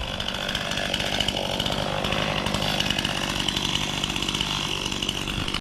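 Chainsaw running steadily, cutting wood, then cutting off abruptly.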